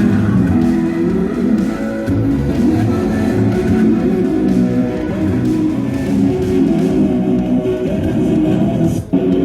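Loud music with a prominent guitar part, playing steadily, with a brief dip just before the end.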